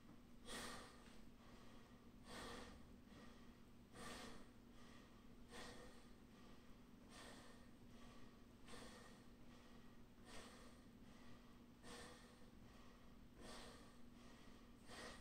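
A man breathing hard while recovering from high-intensity interval exercise, a deep exhale about every one and a half seconds. The breaths are faint, over a steady low hum.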